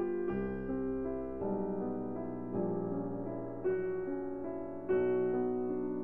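Slow, gentle background piano music, with new notes and chords struck about once a second and left to ring.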